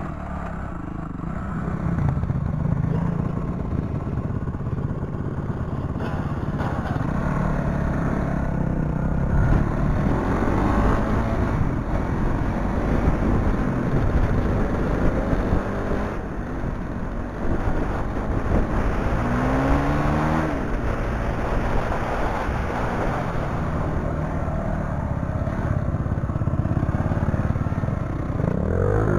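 Off-road motorcycle engine running under load on a dirt trail, revs rising and falling as the rider works the throttle and gears, with a clear rising rev about two-thirds of the way through. Rough rushing noise of wind and trail runs under the engine throughout.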